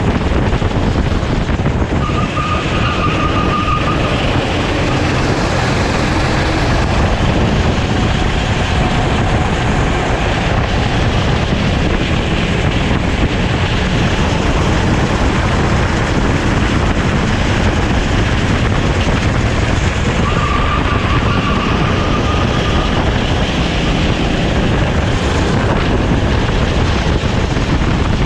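Sodi kart engine running at racing speed, heard onboard with heavy wind rush over the microphone. A brief high squeal comes twice, early on and again about 20 seconds in.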